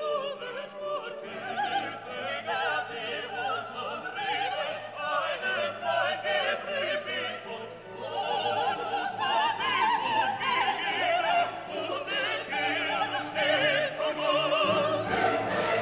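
Background music: operatic singing with a wavering vibrato over orchestral accompaniment, growing fuller about halfway through.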